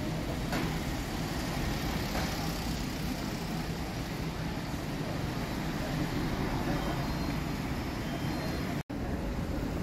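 Busy street ambience: a steady wash of background noise with faint, indistinct voices of passers-by. It cuts out for an instant near the end.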